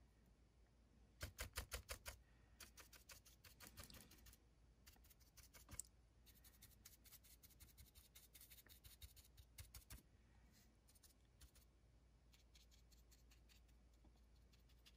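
Faint, quick tapping and scratching of a small paintbrush stippling and dry-brushing acrylic paint onto plastic window and barrel castings, in short runs of ticks, the loudest run about a second in.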